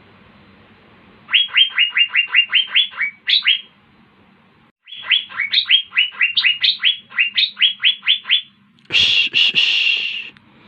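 Asian fairy-bluebird (cucak biru) singing: two runs of quick, evenly repeated rising whistled notes, about five a second, then a harsh hissing burst near the end.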